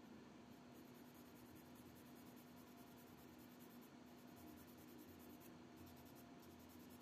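Faint, quick scratching of a fine-grit sanding block rubbed back and forth over the painted plastic head of a scale model figure, smoothing the dried paint. A steady low hum sits underneath.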